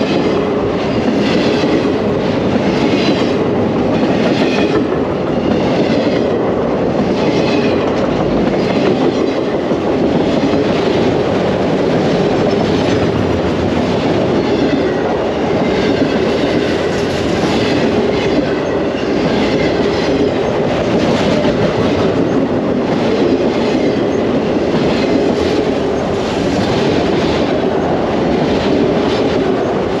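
Freight train cars, tank cars and autoracks, rolling past on the rails, with wheels clacking in a steady rhythm about once a second.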